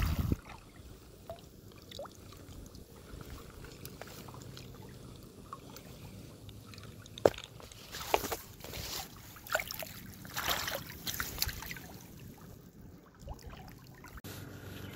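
Low lapping and sloshing of creek water with a scattered run of small splashes and knocks in the middle, as a brown trout is brought into a landing net; one sharp click stands out about seven seconds in.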